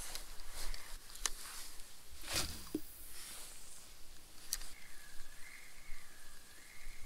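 Spinning reel being cranked to retrieve a lure, with scattered light clicks and knocks from handling the rod. A faint, thin, wavering whir comes in about two-thirds of the way through.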